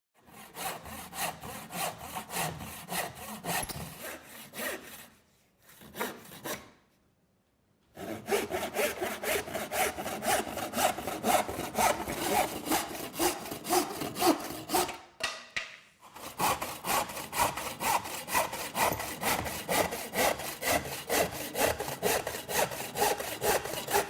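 Roughneck 13-inch hard point toolbox hand saw with triple-ground teeth cutting through material in quick, even back-and-forth strokes, about three a second. It cuts in separate bouts broken by short pauses.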